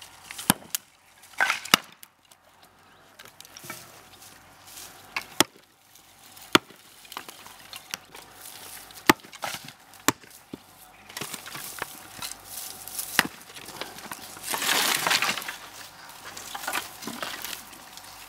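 Hatchet and axe chopping dry firewood and branches on a wooden block: sharp single wooden chops at irregular intervals, some louder than others. About three-quarters of the way through come a couple of seconds of dry rustling and crackling.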